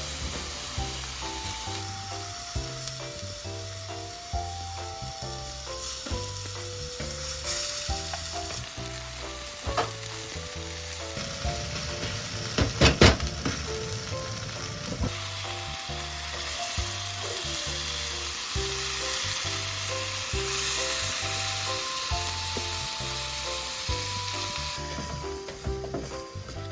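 Food sizzling and frying in a pan as it is stirred, with a few sharp knocks about halfway through. Background music with a steady bass line plays throughout.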